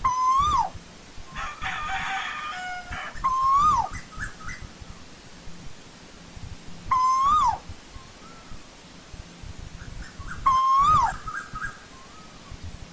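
Asian koel calling: four loud whistled notes about three and a half seconds apart. Each note rises slightly and then drops off sharply. A brief, fainter, rougher call sounds between the first two notes.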